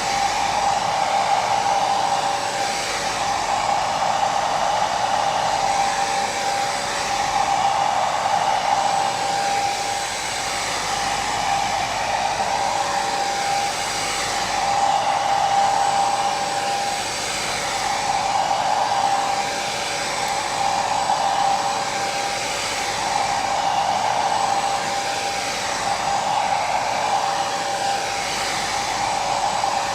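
Hair dryer running steadily, a rushing airflow with a whine from its motor, gently swelling and easing every few seconds.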